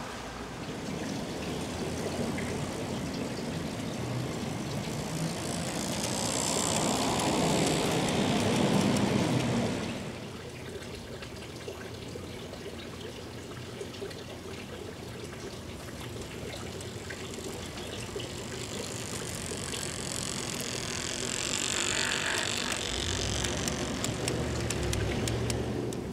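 G-scale model diesel locomotive and hopper cars rolling along garden railway track, a steady rolling clatter of wheels on rail. It grows louder as the train comes closer and drops off suddenly about ten seconds in, then builds again with a low rumble near the end.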